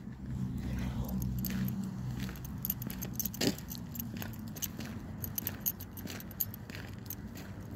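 Small metallic jingling and clicking from someone walking across asphalt, such as keys or phone handling, over a low steady hum.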